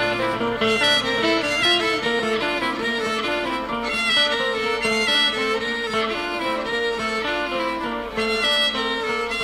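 Background music: a quick tune of many short pitched notes, string instruments to the fore.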